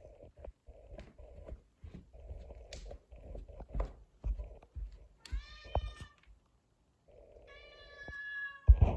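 A domestic cat meowing twice: a short meow about five seconds in and a longer, steadier one about a second and a half later, among soft scattered knocks. A sharp, loud thump comes just before the end.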